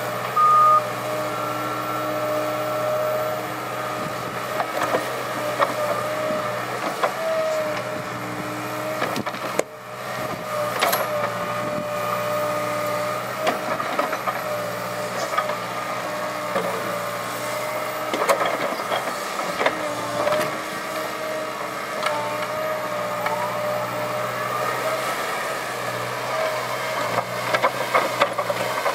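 Liebherr 906 crawler excavator working: the diesel engine runs steadily under load, and the hydraulic whine wavers in pitch as the boom, arm and bucket move. Scattered knocks and clatters come from the bucket and dropped earth. The travel alarm beeps briefly at the very start.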